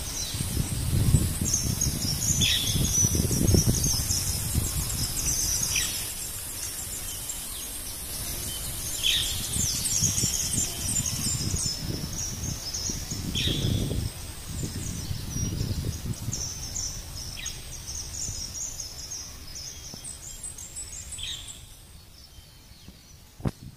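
Insects trilling in a steady pulsing buzz, with a bird's short falling call repeated every few seconds. Waves of low rumbling noise rise and fall, strongest in the first few seconds and again about halfway through.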